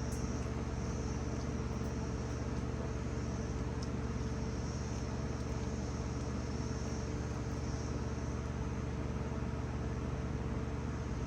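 A steady, unchanging mechanical hum with even low tones and a light hiss.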